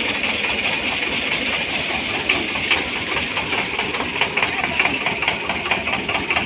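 Diesel tractor engine running close by, with a rapid clatter of ticks that grows plainer after about two seconds as the tractor passes.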